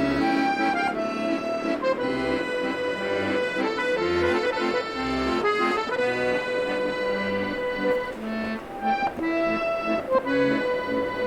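Background accordion music: a melody of held notes changing about once a second over low bass notes.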